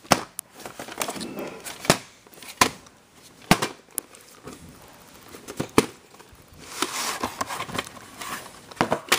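Handling noise from a VHS cassette and its plastic case: scattered sharp clicks and knocks, with stretches of rustling about a second in and again around seven seconds in.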